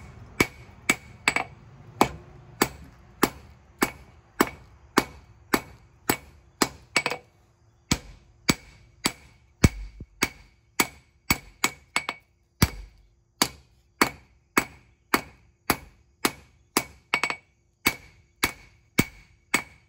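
Hand hammer striking hot leaf-spring steel on an anvil, a steady run of sharp blows about two to three a second, each with a short bright ring. The smith is rolling the corner over to forge a knife point.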